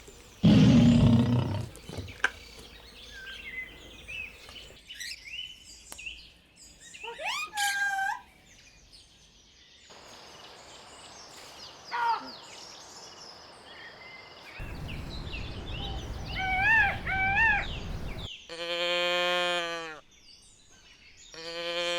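A string of farm-animal sounds: a loud low call about half a second in, scattered bird chirps and short calls in the middle, then two long bleats near the end.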